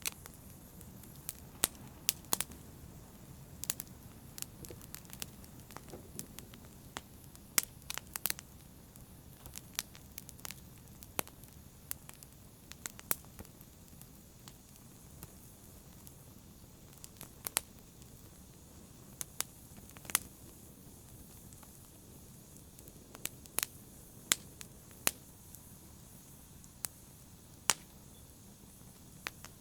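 Fire crackling: irregular sharp pops and snaps, a few of them loud, over a low steady rumble of burning.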